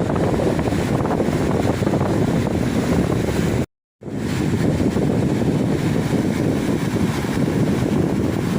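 Ocean surf washing steadily on the shore, with wind buffeting the microphone. The sound cuts out completely for a split second a little under halfway through, then comes back.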